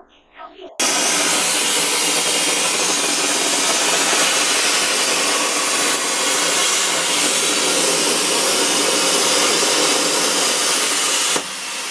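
Plasma cutting torch on an Arcdroid robot arm, its arc cutting through steel plate. The loud, steady hiss starts suddenly about a second in and cuts off near the end, dropping to a quieter hiss as the cut finishes.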